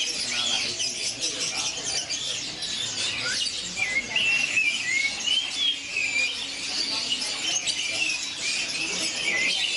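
A dense chorus of many songbirds chirping and squeaking at once, short high notes overlapping without a break.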